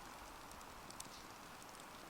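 Wood campfire crackling: a steady soft hiss with a few sharp pops, the clearest about a second in.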